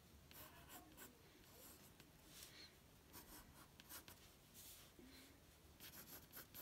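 Faint scratching of a pencil sketching on paper in short, irregular strokes, a little busier near the end.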